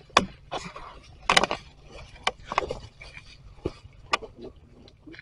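Dry leaf litter rustling and crunching with sharp twig snaps. There are about half a dozen irregular cracks, the loudest a little over a second in.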